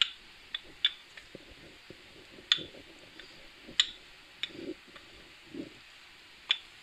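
A wooden rolling pin rolling out stuffed naan dough, giving scattered sharp clicks and knocks at irregular intervals, with two soft dull thumps near the middle.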